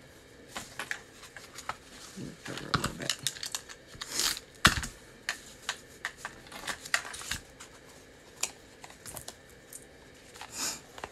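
Paper and ribbon handling: cardstock and ribbon rustling and brushing as they are wrapped, with irregular light taps and clicks, one sharper click about four and a half seconds in.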